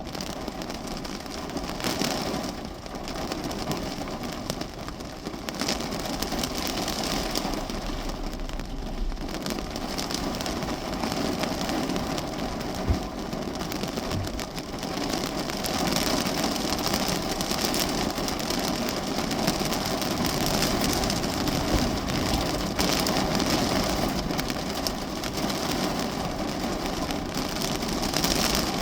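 Heavy rain falling steadily on a car's roof and windshield, heard from inside the cabin, getting heavier about halfway through.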